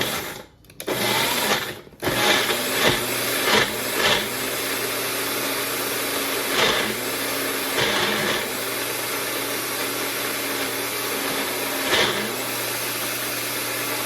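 Kitchen blender motor switched on for a short burst, then running steadily at full speed, with a few brief louder moments as it works through the mix.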